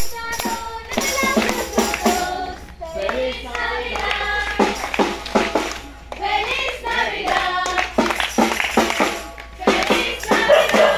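A group singing a Christmas carol, accompanied by a drum and rhythmic percussion.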